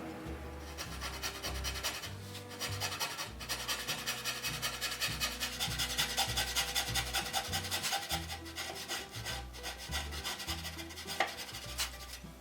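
A hand rasp filing wood in quick repeated strokes, with background music under it.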